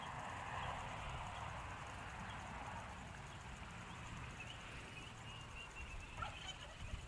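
Outdoor ambience: wind rumbling steadily on the microphone, with a few faint bird chirps in the second half.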